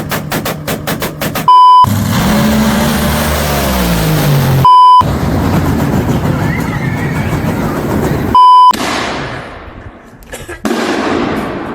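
A short, loud, steady beep sounds three times, about three seconds apart. Between the beeps come brief cut-in snippets of noisy, rumbling audio, one holding a falling pitched tone.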